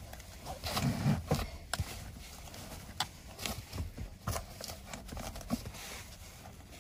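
Scattered rustles and small clicks as an infant car seat's harness is tightened and adjusted by hand: the webbing strap pulled through its adjuster and the fabric straps shifted on the seat.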